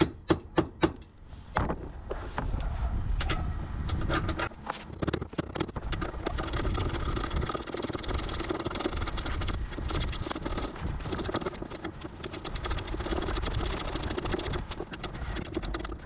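Hammer tapping a 19 mm socket onto a tight spare-wheel carrier bolt under a VW Transporter, a few sharp strikes in the first second. Then a ratchet works the bolt loose in quick clicking strokes over a steady low rumble.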